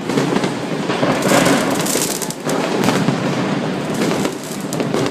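Fireworks and firecrackers going off in a continuous barrage: many overlapping bangs and crackles with no pause.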